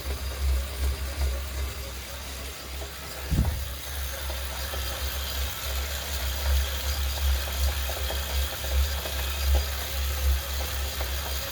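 Wahoo KICKR direct-drive smart bike trainer running under pedalling, with a low knock recurring a little more than once a second. One sharper thump comes about three seconds in, and a higher hiss grows soon after.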